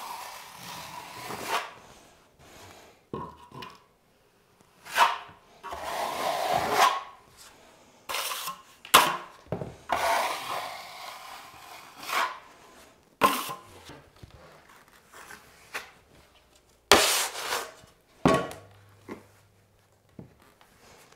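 Steel drywall knife spreading and scraping thick joint compound onto a plaster and drywall patch in repeated strokes, each about half a second to a second long, with sharp clicks between them.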